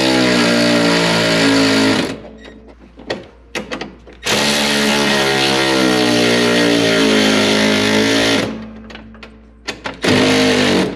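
Milwaukee cordless ratchet running in three bursts as it drives bolts down tight: about two seconds, then about four seconds, then a short run near the end, with brief pauses and small clicks between.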